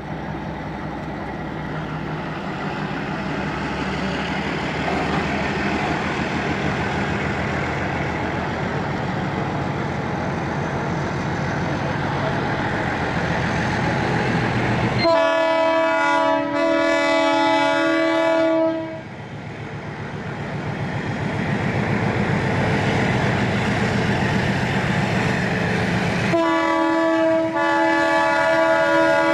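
MLW diesel locomotive hauling a freight train of tank wagons, its engine running and wheels rumbling as it draws closer, then sounding its multi-tone horn chord twice: a long blast about halfway through, briefly broken, and another near the end.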